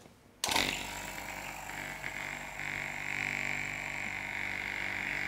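Electric vacuum pump comes on about half a second in and runs steadily, a hum with a hiss of air as it starts evacuating a vacuum chamber. The hiss grows a little stronger partway through.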